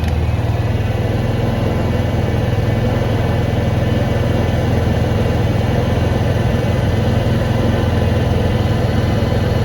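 Honda EU6500is inverter generator engine running steadily under load, powering a 1500-watt heat gun switched to high.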